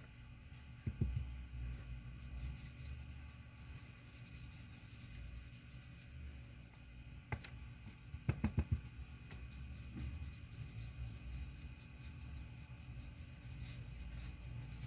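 Small paintbrush being worked and wiped, giving a faint dry scratching. There is a soft knock about a second in and a quick run of taps around eight seconds in.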